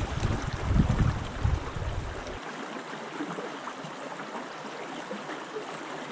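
Small brook rushing and gurgling over rocks close to the microphone. For the first two seconds or so a gusting low rumble of wind on the microphone sits under it and then cuts off abruptly.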